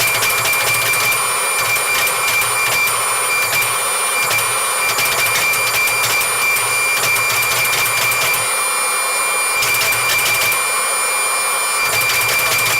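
A machine running steadily, a constant noise with a thin high whine and light crackling ticks throughout.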